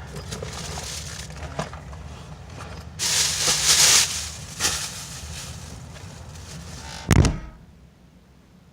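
Gear being handled close to the microphone: rustling and small knocks over a steady low rumble, with a loud rushing noise about three seconds in and a heavy bump about seven seconds in, after which it goes quieter.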